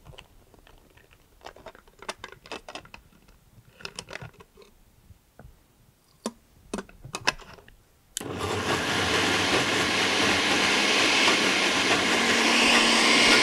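A few light clicks and knocks as liquid is poured in through the lid of a Domo jug blender. About eight seconds in, the blender's motor starts abruptly and runs steadily, churning a thick chickpea hummus mix, and swells slightly near the end.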